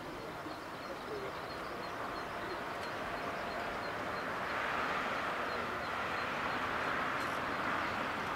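Distant Boeing 747-400 freighter's four jet engines at takeoff power on the takeoff roll: a steady rushing noise that grows louder about halfway through.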